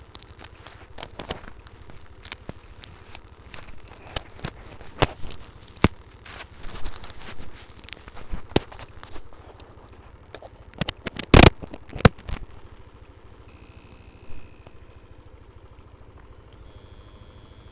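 Clip-on lavalier microphone being handled and adjusted: irregular rustling, scraping and clicking right at the mic, with two loud knocks about eleven and twelve seconds in. After that it goes quieter for the last few seconds.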